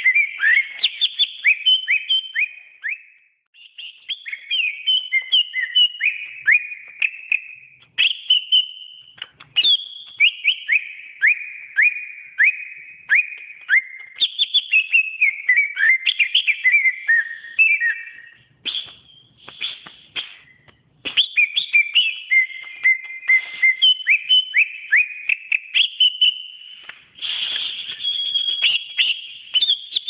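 Cucak ijo (green leafbird) singing a fast, varied song of whistled notes and quick chirps with steep rising and falling sweeps. There are a few short breaks, the longest about two-thirds of the way through.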